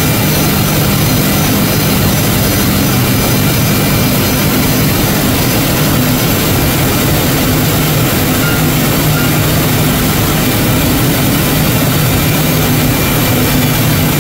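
3-axis CNC router spindle running and its end mill milling a carbon fiber plate, under a loud, even rushing noise from the dust extraction drawing through the brush dust shoe. The sound stays steady throughout, with a low hum and a faint high whine.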